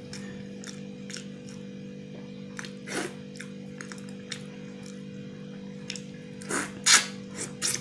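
Eating with the hand: chewing and wet lip smacks as rice is mixed with curry. There are a few sharp clicks, a cluster near the end, and the loudest smack is about seven seconds in. A steady droning tone runs underneath.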